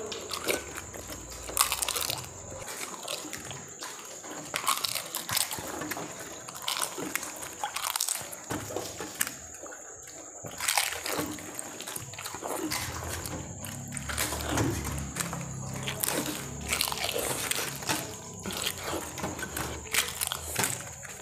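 Pani puri being eaten at speed close to a clip-on microphone: water-filled puris crunching as they are bitten, with wet slurping and chewing, in a quick irregular run of crisp clicks.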